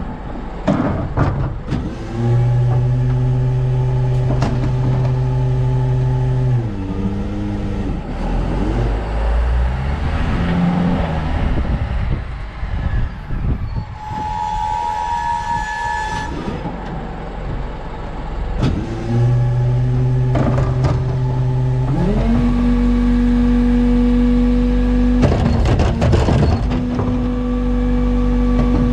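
Refuse truck's diesel engine running under load, its pitch holding steady and stepping up and down several times, with clanks and rattles from the truck body and a brief high tone about halfway through.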